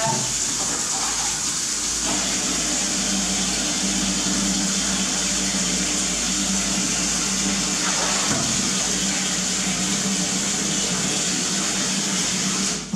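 Water from a wall tap pouring steadily into a metal basin of washing, with a steady low hum underneath. The flow is shut off near the end.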